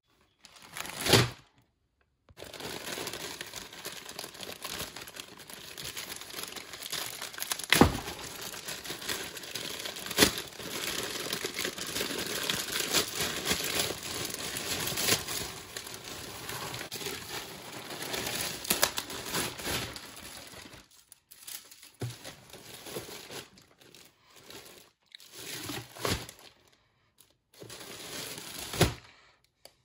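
A grey plastic poly mailer bag being torn open and crinkled by hand, a steady crinkling with a few sharper snaps. Later a clear plastic bag is handled in short crinkling bursts with pauses between.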